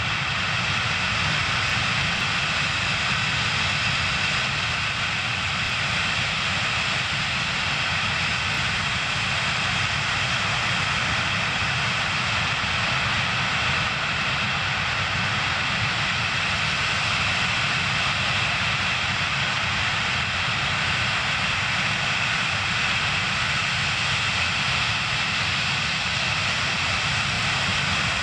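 Antonov An-124-100's four Progress D-18T turbofan engines running steadily at low power, a high whine over a low rumble.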